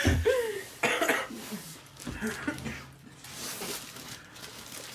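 A person coughing after a shot of tequila, loudest about a second in, then rougher coughs and a hissing breath out.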